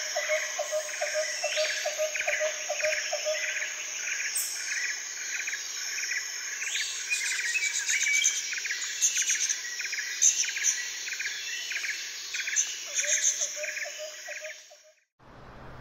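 Birds chirping over a steady trill of insects, with a lower, rapid ticking chirp in the first few seconds and again near the end. The whole soundscape cuts off suddenly just before the end.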